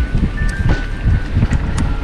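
Mountain bike being ridden over a rough dirt trail: wind rumbling on the microphone, with tyre noise and a rapid series of rattling knocks from the bike.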